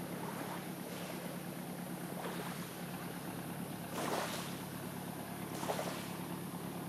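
Small waves lapping on a pebble shore, a soft rushing wash every second or two, the biggest about four seconds in, over a steady low hum.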